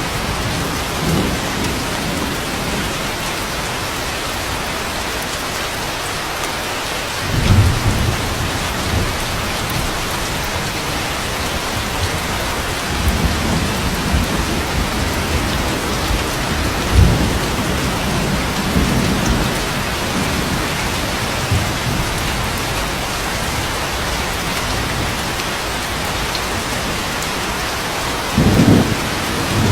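Steady rain with low rumbles of thunder rolling in several times, the strongest about a quarter of the way in, just past halfway, and near the end.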